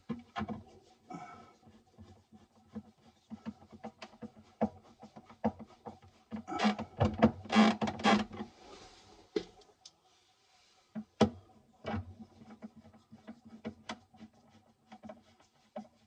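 Small clicks, taps and scrapes of a screwdriver and fingers working on a plastic alarm control panel housing, with a burst of louder rattling knocks about six to eight seconds in. Faint steady tones run underneath.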